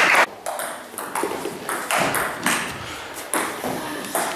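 Table tennis rally: the celluloid ball clicking off bats and the table at about two hits a second, each hit echoing.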